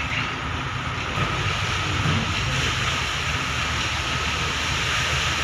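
Diesel engines of a concrete pump truck and mixer truck running steadily during a concrete pour: a continuous low rumble under an even hiss.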